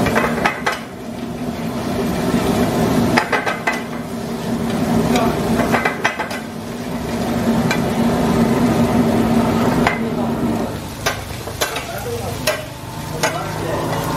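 Crab masala sizzling in a metal frying pan over a high gas flame, with a metal spatula scraping and clinking against the pan as it is stirred. A steady low hum sits underneath and fades near the end.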